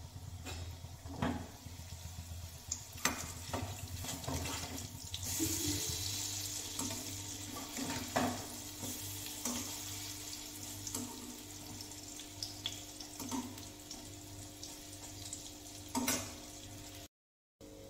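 Hot oil sizzling in an aluminium kadai as chana dal pakoras are dropped in and turned, with a few sharp knocks of a spoon against the pan. The sizzling swells about five seconds in.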